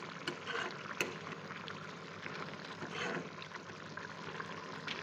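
Chicken and potato gravy simmering in a black kadai, bubbling with scattered small pops.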